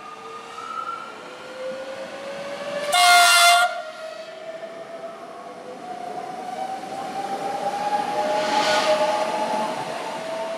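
Electric multiple-unit passenger train running through a station. It gives one short horn blast about three seconds in, then passes with a whine that rises slowly in pitch and the noise of wheels on rails, loudest near the end as it goes by.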